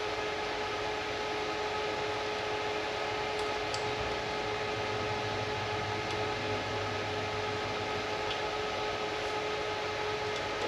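Steady fan-like noise with a faint steady hum, and a few faint clicks about three and a half seconds in.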